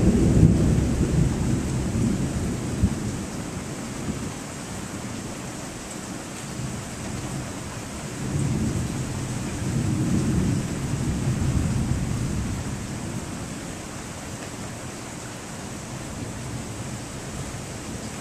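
Thunder rumbling over steady rain. A loud roll at the start fades over a few seconds, then a second, softer rumble swells about halfway through and dies away.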